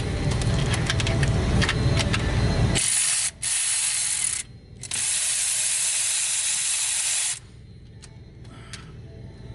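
A hissing spray in three bursts starting about three seconds in, with short breaks, the last and longest lasting about two and a half seconds before stopping abruptly. Before it, a low rumble with a few light clicks.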